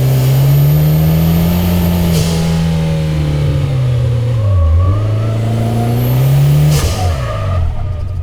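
Mitsubishi Lancer Evolution X's turbocharged 2.0-litre inline-four under hard driving, revs climbing and holding twice with a sharp drop between. A high turbo whine rises with the revs and cuts off abruptly each time the throttle comes off, about two seconds in and again near the end.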